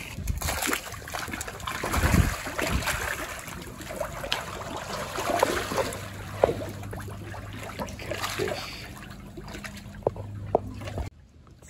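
A swarm of catfish thrashing at the water's surface in a feeding frenzy over food scraps: a continuous churning of splashes and slaps, loudest about two seconds in.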